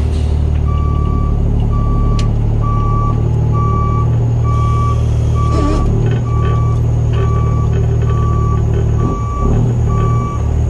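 Backup alarm beeping steadily, about one and a half beeps a second, over the low steady running of the Kenworth C500's straight-piped diesel as the rig reverses.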